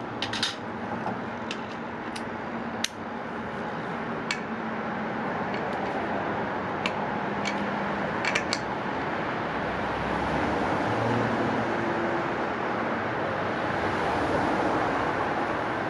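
Scattered sharp metal clicks and clinks of a socket wrench being fitted to the scooter's wheel nuts, over a steady background hum that swells slowly. The clicks fall in the first half and are gone in the second half.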